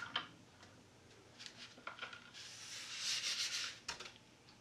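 Handling noise from a foam RC bomber wing: a few light clicks, then a rubbing scrape about halfway in that lasts over a second, with one more click near the end.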